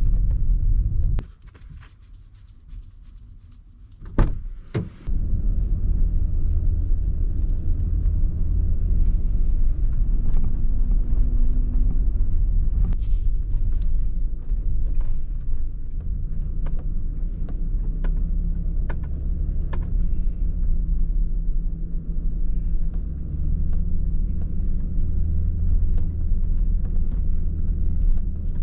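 Camper van engine and road rumble heard from inside the cab while driving. A quieter gap of a few seconds near the start holds a couple of sharp clicks, then the steady low rumble returns.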